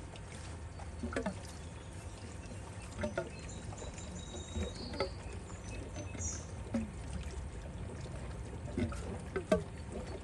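Water trickling, with scattered single drips.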